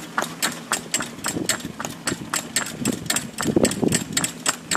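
Pony's hooves clip-clopping on a tarmac road as it pulls a carriage, sharp clicks about four a second. A low rumble swells about three and a half seconds in.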